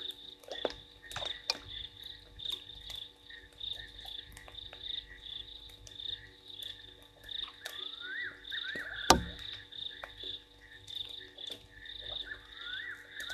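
Night chorus of frogs calling at a waterhole: a steady trilling chorus with many short clicks and, twice, a rising call. One loud sharp knock about nine seconds in stands out above the chorus.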